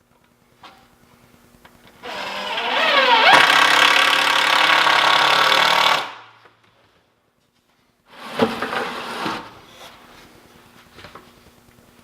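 Power drill running for about four seconds, its motor whine rising as it spins up, as a screw is driven into the workbench frame, followed by a shorter, rougher burst a couple of seconds later.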